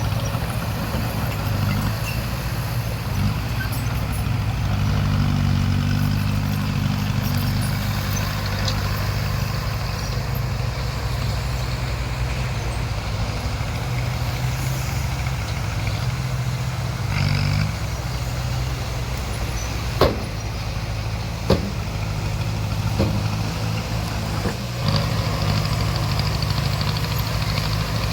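Bulldozer's diesel engine running steadily, working a little harder around five to eight seconds in, with a few sharp knocks in the second half.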